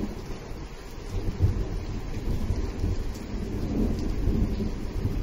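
Thunder rolling in a long low rumble that builds about a second in and swells and fades, over steady rain.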